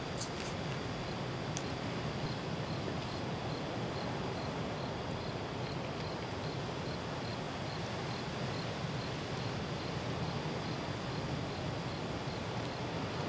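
A cricket chirping in an even series, a little over two chirps a second, over a steady rushing background of wind and surf. A few sharp clicks in the first two seconds.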